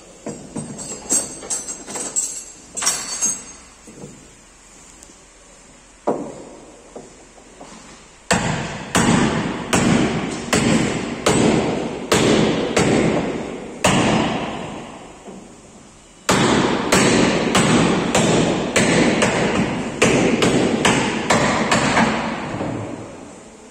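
Hammer blows on a truck cab's sheet metal as collision damage is straightened, struck about twice a second in two long runs, each blow ringing out. Lighter metal clinks come in the first few seconds.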